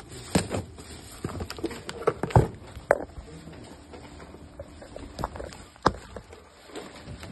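Corrugated cardboard boxes being handled and their flaps pulled open: irregular knocks, scrapes and rustles of cardboard, busiest in the first three seconds, with two sharper knocks later on.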